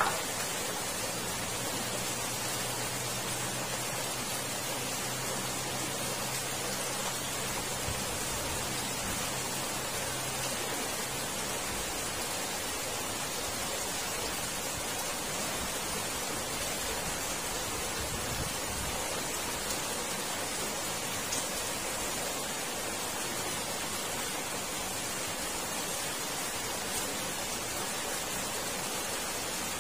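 Steady rushing hiss of water flowing in the culvert beneath the iron drain grate. A faint low hum sits underneath and fades out about twelve seconds in.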